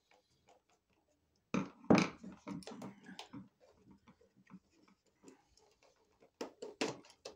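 Clicks and light rattles of an electrical outlet and its wires being handled at a wall box while the old cable is unhooked: a flurry of sharp clicks about a second and a half in, scattered ticks after, and a few more clicks near the end.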